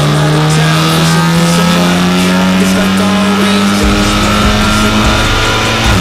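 Mk7.5 VW Golf R's turbocharged 2.0-litre four-cylinder engine pulling on a rolling-road dyno during a power run on its base map. Its note rises steadily and then steps down in pitch near the end.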